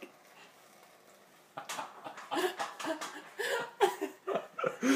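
A person laughing off-camera in a run of short bursts, starting about a second and a half in.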